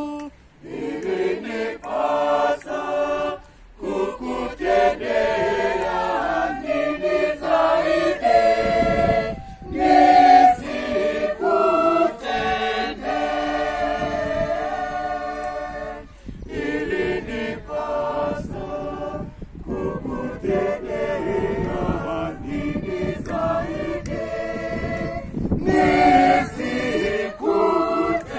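Choir singing in phrases with short breaks between them.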